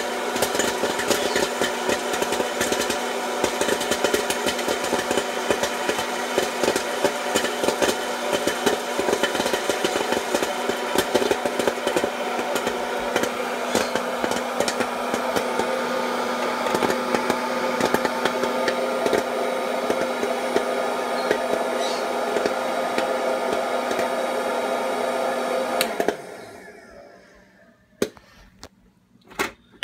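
Death Star hot-air popcorn maker running: a steady fan-and-motor hum with many sharp pops and rattles of popcorn in the plastic dome. Near the end the motor winds down and stops, followed by a few light knocks.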